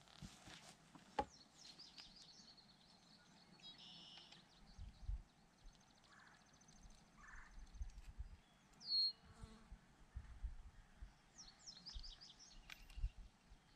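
Quiet open-field ambience: small birds chirping and an insect buzzing, with a sharp click about a second in and a few low thumps.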